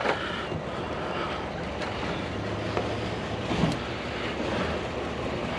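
Steady vehicle noise, an even rumble and hiss with no distinct events.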